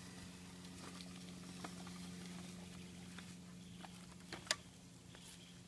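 Faint, scattered clicks and taps from a plastic push-walker toy being rolled over grass, with a sharper click about four and a half seconds in. A steady low hum runs underneath.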